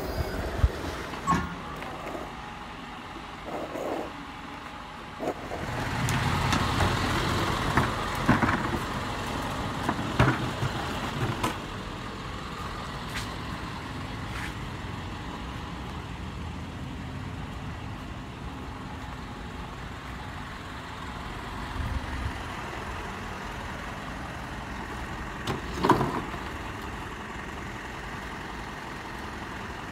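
A truck running steadily, louder for several seconds early on, with scattered clanks and knocks, the loudest about 26 seconds in.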